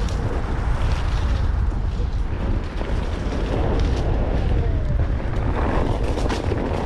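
Wind buffeting an action camera's microphone in a steady deep rumble as a Onewheel GT electric board rolls along a dirt trail, with scattered sharp clicks and crackles from the tire over the ground.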